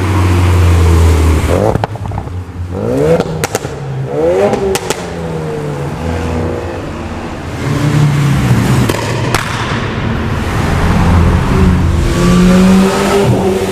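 Performance car engines revving hard and accelerating, their pitch climbing steeply several times, with a handful of sharp exhaust pops and crackles between about two and five seconds in and one more near the middle. Later an engine holds a steady drone.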